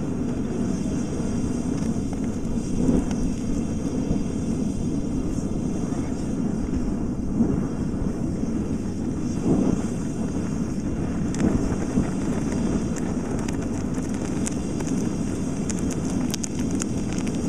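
Molten brass poured into a plaster investment mold, spitting and crackling from about two-thirds of the way in as the metal splatters, a sign of wax or water left in the mold. A steady low roar runs underneath.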